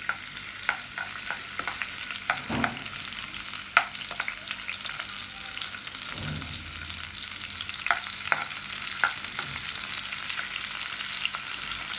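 Finely chopped garlic sizzling in hot oil in a kadhai, with a steady hiss, while a steel spoon stirs it and now and then clicks and scrapes against the pan. This is the garlic tempering (phodni), fried until it turns pinkish.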